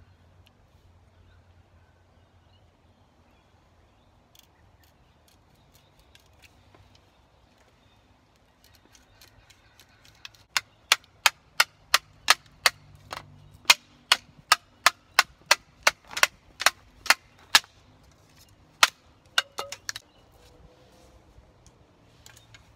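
Hand-tool work: a steady run of sharp knocks, about two and a half a second, starting about halfway through and stopping a little before the end, with fainter taps before it.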